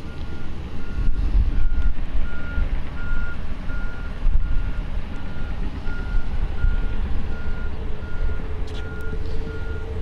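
A vehicle's reversing alarm beeping steadily, about three beeps every two seconds, over a loud low rumble. A steady hum joins about seven seconds in.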